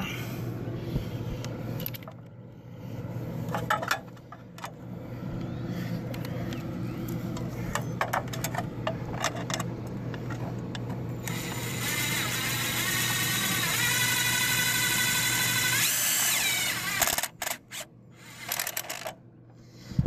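Cordless driver with a nut-driver bit fastening screws into a sheet-metal control box. First come scattered small clicks of handling. About eleven seconds in, the motor spins up with a rising whine, runs for about five seconds and winds down.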